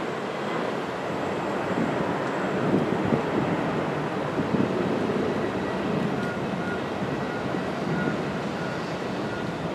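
Steady rushing roar of jet airliner engines on the runway, from a Boeing 737-800 rolling out after landing and another airliner taxiing nearby. A faint beeping, about two beeps a second, comes in about six seconds in.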